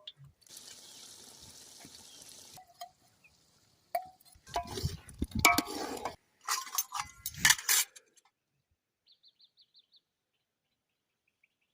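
Dishes and kitchen utensils clinking and knocking together in several clusters, after a short hiss in the first couple of seconds.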